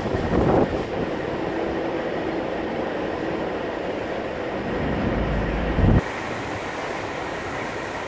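Strong wind gusting through the truck stop's fuel island canopy: a steady rushing rumble on the microphone, with a heavy low buffeting gust about five seconds in that cuts off suddenly.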